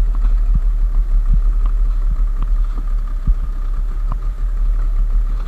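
A small boat's outboard motor running steadily, with scattered light clicks and knocks.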